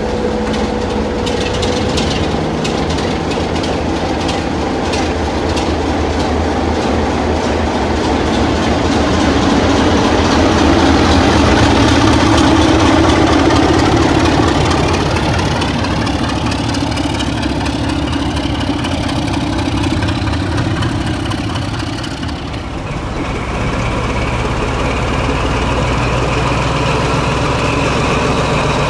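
Diesel locomotive engine running steadily. It grows louder about ten seconds in and eases back, and its engine note changes about two-thirds of the way through.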